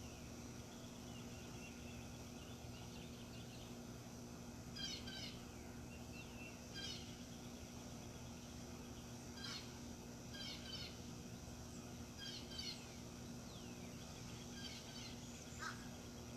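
Birds giving short, repeated chirping calls every second or two, over a faint steady low hum.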